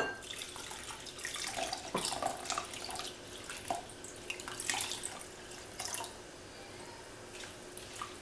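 Water poured from a glass measuring cup into a glass bowl of red quinoa, splashing and trickling unevenly over the grains, after a sharp glass clink at the start. The pouring dies away about five and a half seconds in, leaving only faint small ticks.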